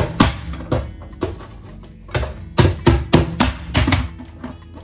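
Plastic push-down vegetable dicer being pressed repeatedly to chop an onion into its container: a string of sharp plastic clacks with dull thuds on the wooden board, about ten strokes, some in quick runs.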